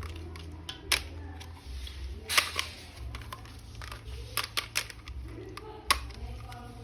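Plastic toy figures being handled: a few sharp clicks and taps, spaced a second or two apart, over a steady low hum.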